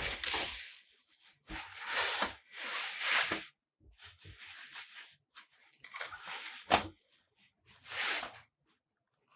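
Softbox fabric with a silver reflective lining rustling and crinkling as it is handled, in a series of short swishes. A sharp click comes about seven seconds in.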